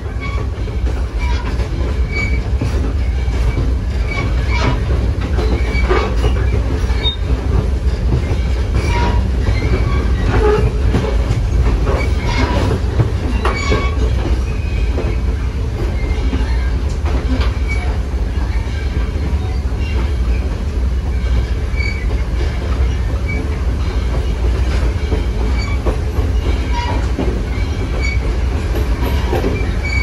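Passenger coach rolling along the track behind a steam locomotive: a steady low rumble of wheels on rail, heard through an open window, with irregular clicks and knocks from the track and brief wheel squeals.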